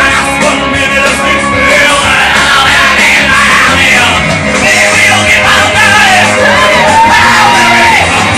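Loud rock music with a voice singing and shouting over it.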